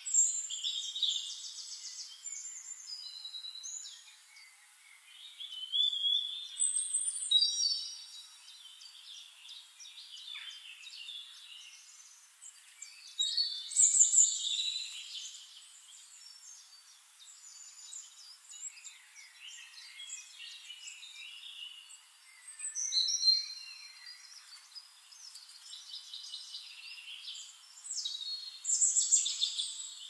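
Several songbirds singing and chirping: whistles and trills in bursts a few seconds apart, over a faint steady hiss.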